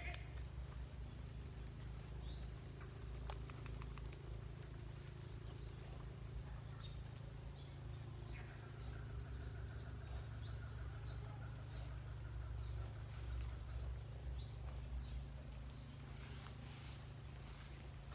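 A bird calling over a steady low rumble: a run of about ten short, high chirps that drop in pitch, evenly spaced, in the second half, after a single chirp early on.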